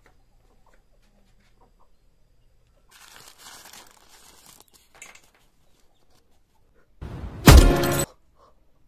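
Soft cloth rustling as a small cloth bundle is handled and opened, about three seconds in, then a loud, brief wail of a man crying out near the end.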